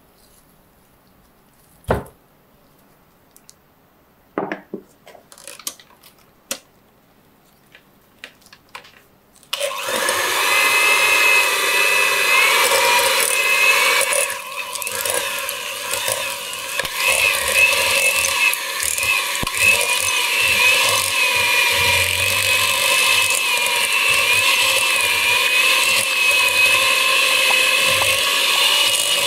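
A few clicks and knocks of handling at a glass bowl, then about ten seconds in an electric hand mixer starts up and runs steadily with a slightly wavering whine, its beaters churning cream cheese in the glass bowl.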